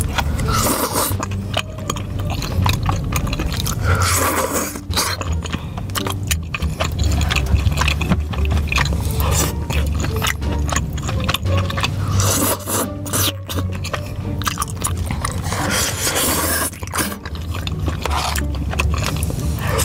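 Close-miked mukbang eating sounds: chewing of soft, sauce-coated tteokbokki rice cakes, with wet smacking mouth sounds and many small clicks, and several louder wet bursts.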